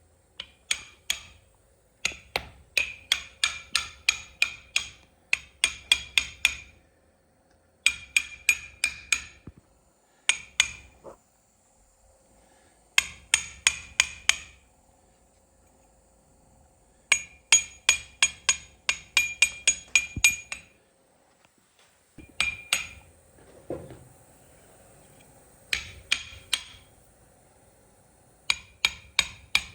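Hammer tapping on steering-column parts during an overhaul: quick, sharp strikes that ring briefly, in runs of several blows at about four or five a second, separated by short pauses.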